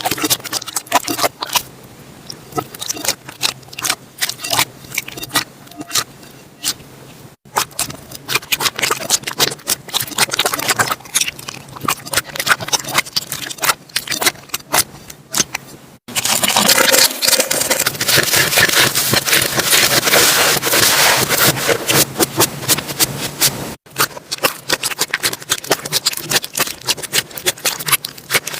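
Slime being squeezed, stretched and poked by hand, giving a quick stream of sticky clicks and pops. It comes in short clips that cut off abruptly about a quarter of the way in, just past halfway and near the end. The clip from just past halfway is a denser, louder crackling.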